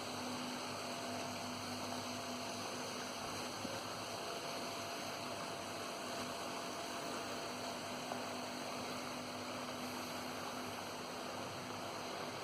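Portable line-boring machine running steadily: an even electric hum with hiss.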